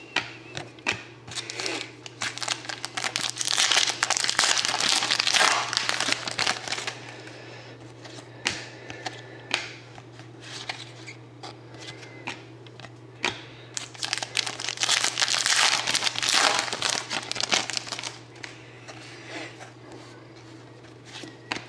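Trading card pack wrappers crinkling and tearing as packs are opened, in two long bouts, with scattered short clicks of cards being handled in between. A low steady hum runs underneath.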